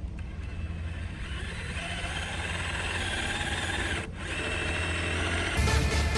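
Power drill driving screws into a fence post: a steady whine with a short stop about four seconds in. Electronic dance music starts near the end.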